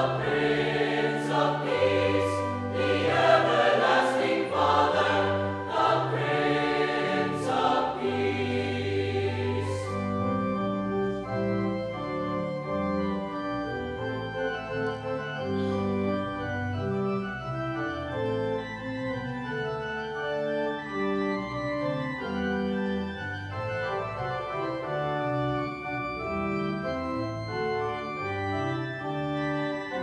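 Mixed choir singing with organ accompaniment; about ten seconds in the voices stop and the organ plays on alone.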